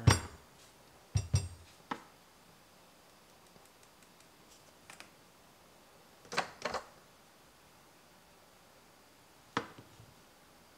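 Short hard knocks and taps of an espresso portafilter and dosing cup being handled on a counter mat. One loud knock comes at the start, a quick pair follows about a second later, another pair comes past the middle and a single knock falls near the end.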